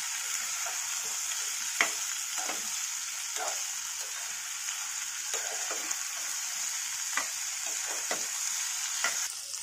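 Chopped vegetables sizzling steadily as they are stir-fried in hot oil and ghee, with a few short knocks of the stirring spoon against the pan.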